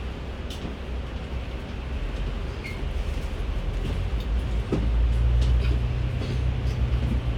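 Kowloon Motor Bus engine heard from inside the cabin: a low hum that grows louder from about two seconds in, with a steadier, stronger drone setting in about halfway. Light clicks and rattles from the cabin come and go.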